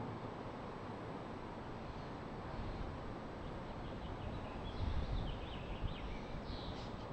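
Steady ambient background noise, a rushing hiss with a low rumble, re-recorded from a played-back looped field recording. A few faint high chirps come through about five seconds in.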